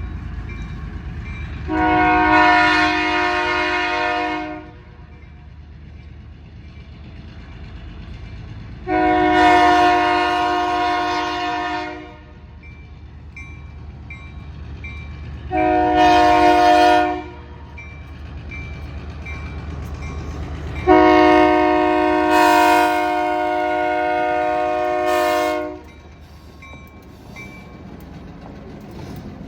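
Diesel locomotive's horn sounding the grade-crossing signal: long, long, short, long, with the last blast the longest. The locomotive's diesel engine runs hard at full throttle beneath it. Between the blasts a crossing bell rings with a faint steady tick.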